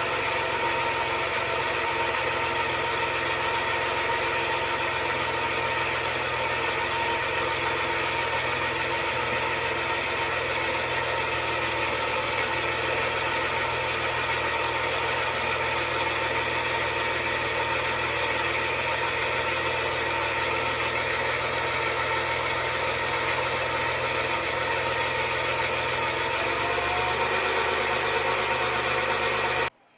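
Suzuki F6A three-cylinder engine idling steadily with its ignition timing set late. The idle note shifts slightly near the end, then the sound cuts off suddenly.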